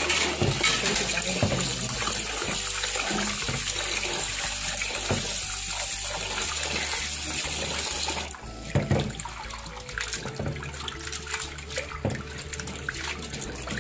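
Tap water running into a bowl of peeled prawns in a sink, with hands swishing and rubbing the prawns in the water. About eight seconds in the hiss of the stream eases, and the splashing of the hands stands out.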